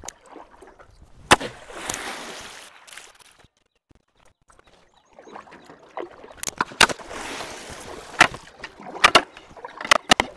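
A long pole knocking against the side of a small boat, with water sloshing and splashing as the pole is worked down into deep water. One sharp knock comes about a second in, then a run of knocks in the second half, with a quiet pause between.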